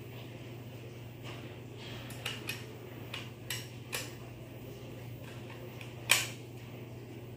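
Light clicks and taps of a laptop SSD and its metal hard-drive caddy being handled and fitted together, with a few small knocks about two to four seconds in and one louder knock about six seconds in.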